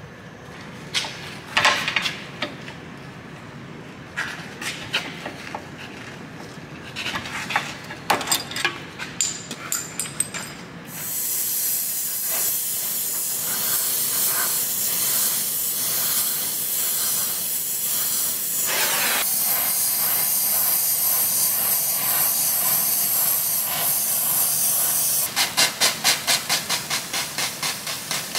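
Scattered clicks and metal knocks, then about 11 seconds in a gas torch lights and hisses steadily as it heats the rear lower knuckle around the old bushing. Near the end a hand spray bottle squirts liquid onto the hot metal about four times a second, each squirt hissing into steam.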